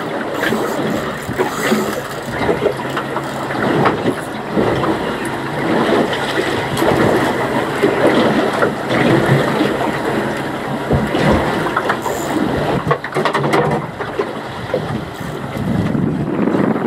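Wind buffeting the microphone, with water sloshing against a boat hull at sea: an uneven, gusting rush that rises and falls.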